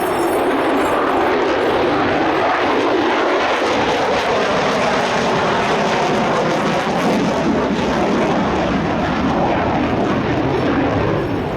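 F-35A fighter's Pratt & Whitney F135 turbofan engine, a loud, steady jet rush whose tone shifts slowly.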